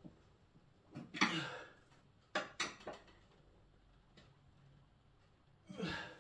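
Small metal fixings being handled at a wall by hand: short clinks, knocks and scraping rattles of screws, washers and a radiator wall bracket. There is a rattle about a second in, a quick run of sharp knocks a moment later and another rattle near the end.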